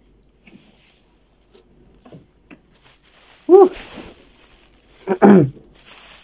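Clear plastic bag of ground ginger rustling faintly as it is handled. Two short, loud vocal outbursts, each rising and falling in pitch, come about halfway through and again a second and a half later, while the ginger is irritating the nose.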